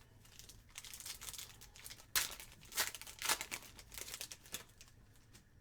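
A trading card pack's wrapper is torn open and crinkled, in a series of irregular rustles and crackles. The sharpest crackles come around the middle.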